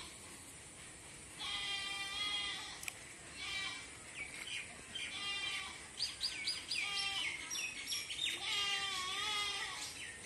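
Bleating, heard as a series of quavering calls of about a second each, the longest near the end. Short high chirps sound in between.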